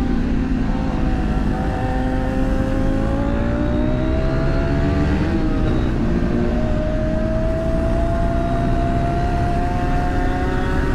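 Engine of a car or motorcycle lapping a race track under power. Its pitch climbs slowly, drops briefly about five seconds in, then climbs again.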